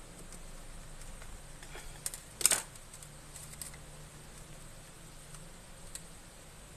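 Faint handling noises as fingers press flex cables and connectors into place inside an opened MacBook Pro A1278. There are a few light clicks and one short, louder scratchy click about two and a half seconds in.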